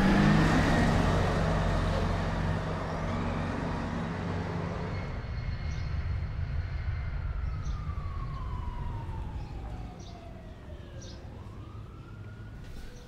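City street traffic, with a bus's engine close by at first, fading over the first few seconds. A faint siren wails over the low traffic rumble, falling slowly in pitch and then rising again near the end.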